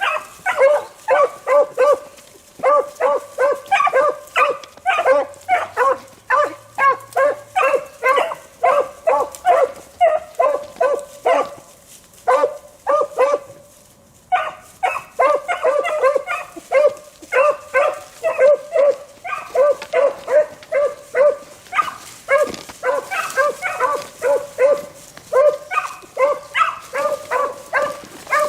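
Beagles baying in full cry while running a rabbit track: short, rapidly repeated bawls, several a second, from more than one hound overlapping. There is a brief lull about twelve seconds in, then the baying picks up again.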